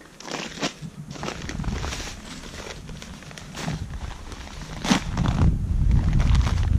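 Plastic bag of pelletized lime crinkling and rustling in a series of short crackles as it is handled over a push broadcast spreader, with one sharp click about five seconds in. A low wind rumble on the microphone builds up over the last couple of seconds.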